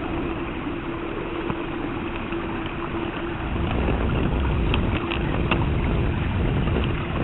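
LGB G-scale garden train running along its track, heard from a camera riding aboard: a steady hum with a faint constant whine from the running gear, and a rumble that grows louder about halfway through, with a few light clicks.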